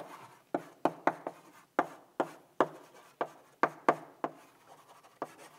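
Chalk writing on a blackboard: an irregular string of about a dozen sharp chalk taps with short scratches as letters and symbols are written.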